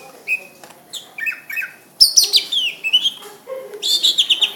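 Cucak ijo (leafbird) singing: a string of varied short whistled phrases with sweeping notes, loudest from about two seconds in, and a fast run of repeated notes near the end.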